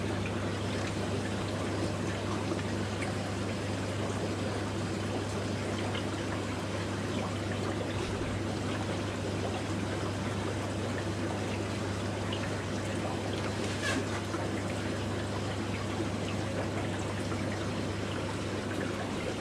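Water trickling and splashing steadily, over a constant low hum.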